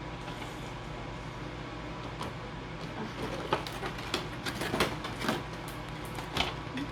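Hard plastic figure parts and stand being handled, giving a scatter of short clicks and taps from about three seconds in, over a steady low hum.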